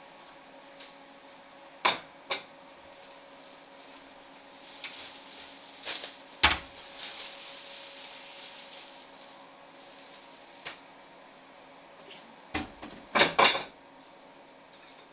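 Plastic bag rustling for a few seconds mid-way, among sharp knocks and clatter of objects handled at a kitchen counter. The loudest is a quick double knock near the end. A faint steady hum runs underneath.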